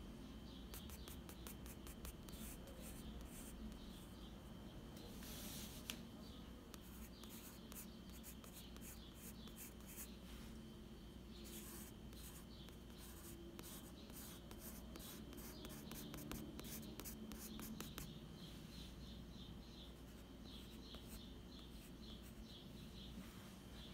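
Graphite pencil scratching on sketchbook paper in runs of quick, short hatching strokes, with a few longer rubbing strokes between them.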